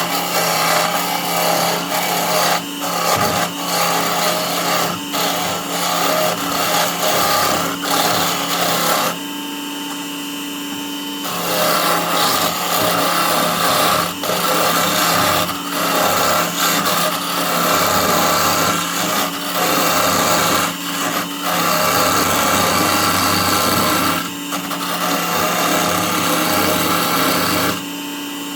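Wood lathe running with a steady motor hum while a turning tool cuts the spinning wood with a rough scraping hiss. The cutting stops for about two seconds partway through and again near the end, leaving only the motor hum.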